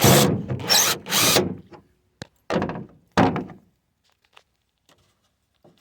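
Hand-work on a pickup tailgate: rough scraping strokes, then two short knocks a little past halfway as a part is pulled loose.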